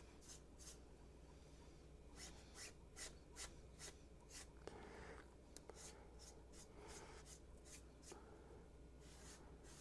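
Faint, soft rubbing strokes of a damp sponge blending freshly applied wood filler into the seams of a 3D-printed model, repeated irregularly.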